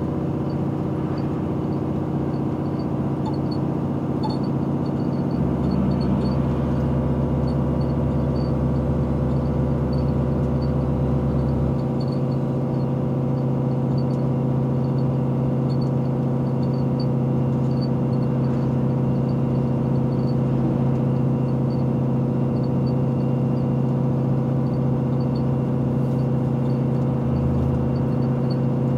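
Scania R450 truck's 13-litre straight-six diesel running at a steady cruise, heard from inside the cab as a steady low hum. A deeper drone joins in from about five seconds in for some six seconds.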